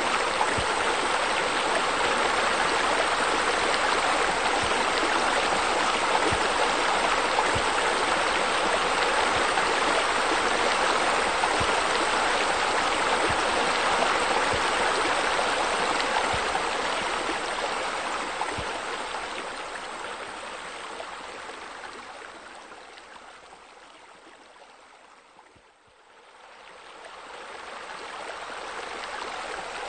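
Steady rush of falling, splashing water from pool water features such as a spa spillover and sheer descents. It fades down to almost nothing about 25 seconds in, then swells back up.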